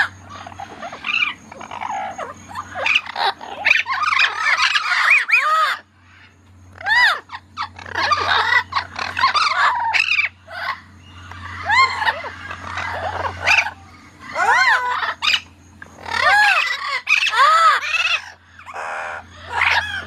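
Amazon parrots calling: clusters of short squawks and arching, whistled calls, one after another with brief pauses, over a steady low hum.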